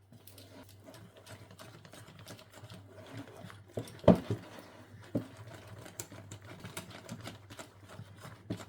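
Hand whisk beating gram-flour batter in a bowl: quick, irregular ticking of the wires against the bowl, with a few louder knocks, the loudest about halfway through.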